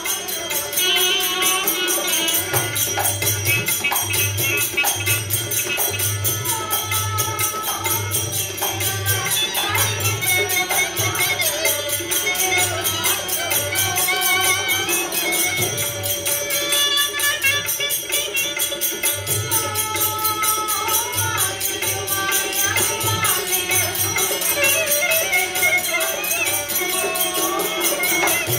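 Terah taali folk music: small brass cymbals (manjira) tied to the dancers' bodies, struck in rhythm with cymbals held in their hands, over a steady barrel-drum beat and a singing voice. The drum drops out briefly just past the middle.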